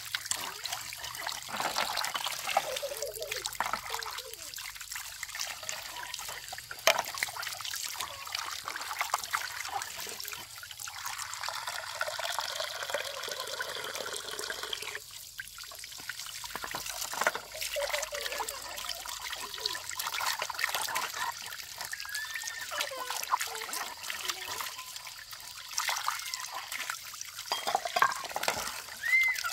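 Water trickling and splashing steadily, with many small clicks and drips.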